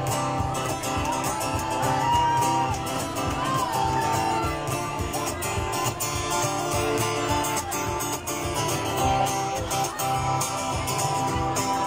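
Live acoustic guitar being strummed, with a voice singing held, bending notes over it.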